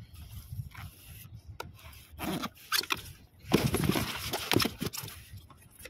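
Plastic carrier bag rustling and crinkling as a freshly caught fish is handled into it, loudest in a burst about three and a half seconds in.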